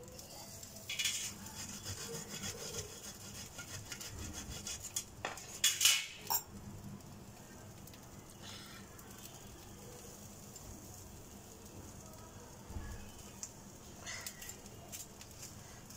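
Faint kitchen handling noises: short scratchy rustles and scrapes, loudest in a cluster about five to six seconds in, as toppings are sprinkled over bread on a pan.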